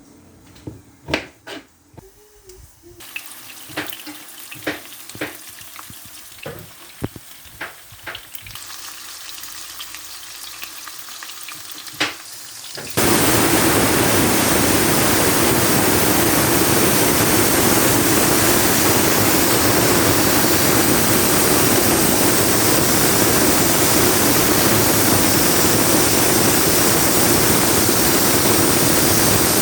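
Pressure cooker coming up to pressure: scattered sharp clicks and spits over a faint hiss that slowly grows. About thirteen seconds in, the whistle blows and steam rushes out in a loud, steady hiss that carries on.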